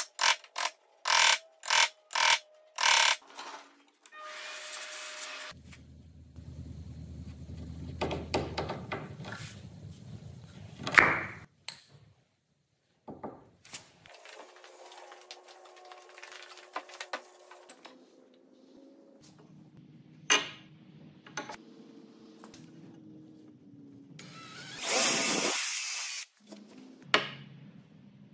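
A mallet striking a wood chisel in a quick series of about eight blows, roughly three a second, chopping a mortise in pine. Later come a few single knocks and a short burst of a power tool, over quiet background music.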